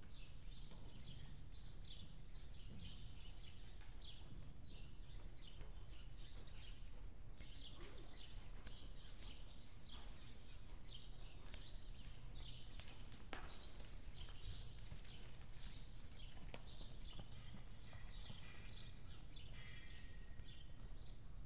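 Arabian mare's hoofbeats on the sand footing of an indoor arena as she is ridden, a run of short irregular footfalls over a steady low hum.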